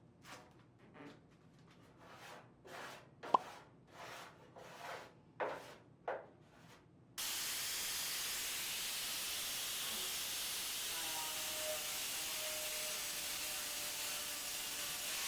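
Body filler being spread and scraped onto the steel body of a pedal car in about eight short rubbing strokes, with one sharp click among them. After a sudden cut comes a steady hiss, with faint steady tones joining near the end.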